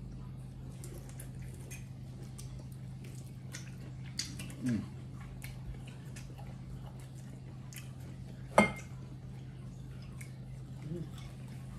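Eating at a table: scattered light clicks of a fork and knife on plates with soft chewing, over a steady low hum. One sharp clink of cutlery on a plate stands out about two-thirds of the way through, and a brief murmur of voice comes a little before the middle.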